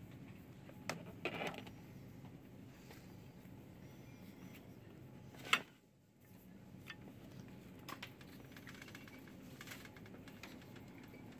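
Quiet shop background hum with scattered light clicks and knocks from handling. The sharpest click comes about halfway through and is followed by a brief drop-out to near silence.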